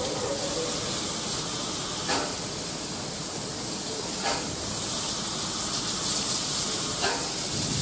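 LMS Coronation Class steam locomotive 46233 standing with steam hissing steadily, with three short clanks at intervals.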